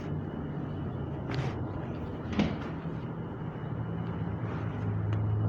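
A steady low hum that grows a little louder near the end, with two short hissing noises about a second and a half in and again a second later.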